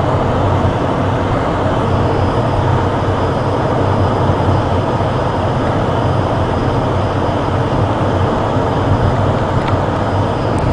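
Steady engine drone and running noise heard from inside a moving vehicle, with a constant low hum underneath.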